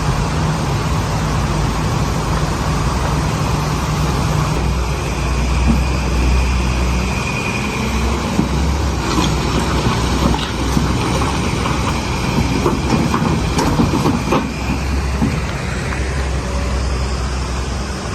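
Heavy excavator working: a steady diesel engine with repeated metal clanks and knocks, and a brief high squeal of metal about seven seconds in.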